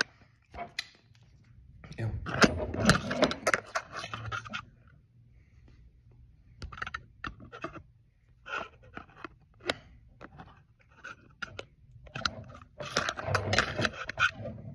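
Handling noise from a phone being set in and adjusted on a mic stand: bursts of rubbing and knocking about two seconds in and again near the end, with scattered small clicks and taps between.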